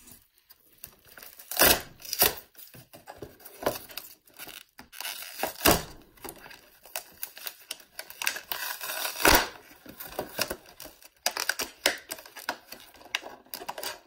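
Plastic blister packaging on a cardboard card crackling and tearing as light bulbs are pulled out of it, in irregular bursts with a few sharp, louder cracks.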